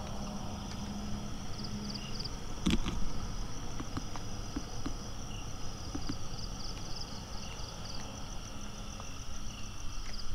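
Night insects chirping steadily in quick repeated pulses, over a low rumble. A low steady hum fades out after the first couple of seconds, and a single sharp knock comes about three seconds in.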